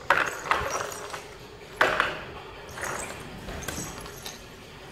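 A few sharp knocks and clacks of a hard plastic toy dump truck being handled and set down on a wooden floor, the loudest near the start and about two seconds in.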